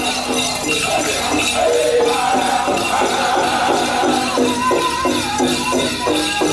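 Powwow drum group singing a men's chicken dance song over a steady, even drumbeat, with the jingling of the dancers' bells in the mix.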